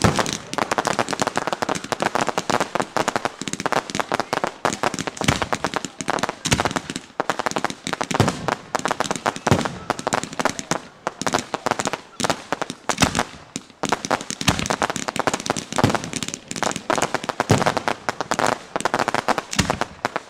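Fireworks firing: a dense, continuous run of crackling and popping, with heavier bangs every second or two.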